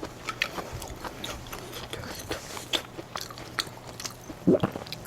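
Close-miked chewing and mouth sounds of a person eating: an irregular run of small wet clicks and crunches, with one louder short sound about four and a half seconds in.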